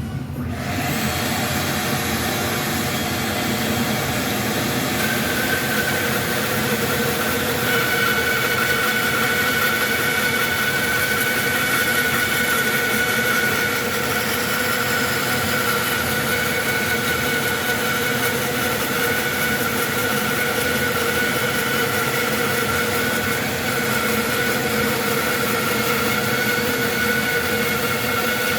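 Powermatic bandsaw running steadily while its blade resaws a board of oak. A steady whine comes in about five seconds in and holds.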